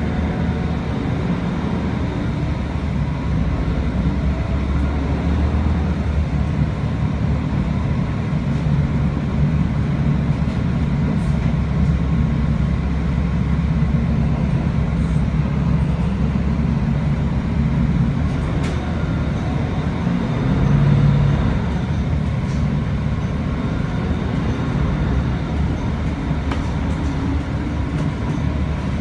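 Inside a city transit bus on the move: steady engine and road rumble with a faint steady whine, swelling briefly about two-thirds of the way through.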